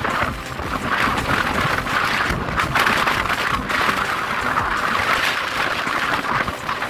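Wind buffeting the microphone with road noise from a moving vehicle, a loud rushing hiss that swells and fades in gusts.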